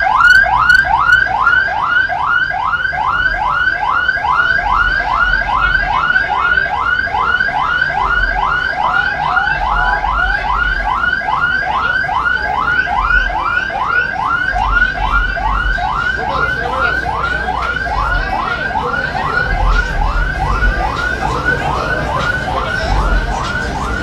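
Electronic vehicle siren in yelp mode: fast rising sweeps, about three a second, each dropping sharply before the next, stopping near the end.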